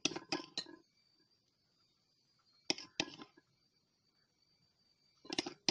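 Spoon clinking against a bowl while scooping stuffing into a cuttlefish: three short clusters of quick clicks, about two and a half seconds apart.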